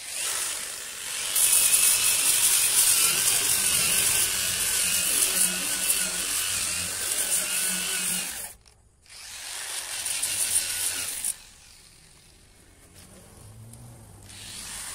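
Angle grinder with a sanding disc running against hardened body filler on a bus body panel: a loud, steady motor whine with a gritty sanding hiss, wavering in pitch as the disc is pressed on. It runs for about eight seconds, cuts out briefly, runs again for about two seconds, then falls away.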